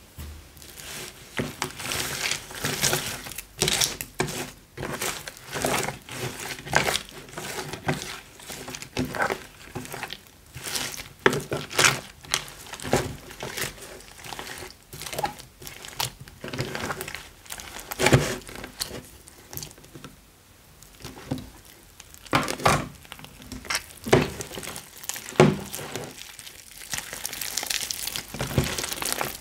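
Thick slime mixed with modelling clay being stirred with a plastic spatula and then stretched and squeezed by hand. It makes a dense run of irregular sticky crackles and squishes that start abruptly.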